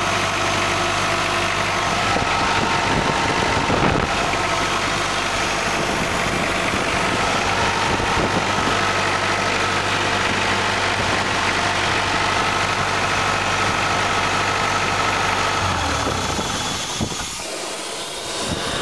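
Sullair portable air compressor's diesel engine running steadily with an even hum. Near the end the low hum changes and drops away, and the sound gets quieter.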